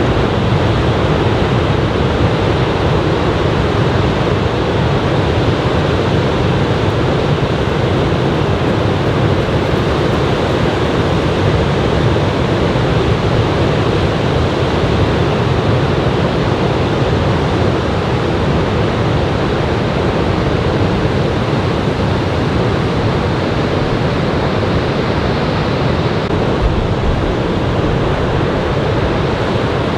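Surf from a typhoon swell breaking on a sandy beach: a steady, unbroken wash of waves.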